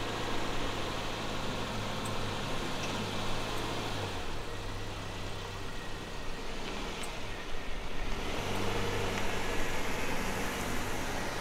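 A motor vehicle's engine running with a steady low hum under a haze of outdoor noise.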